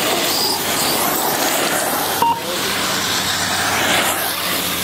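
1:8 electric RC racing cars running on a dirt track, heard as a steady noisy rush, with one short beep from the lap-timing system about two seconds in.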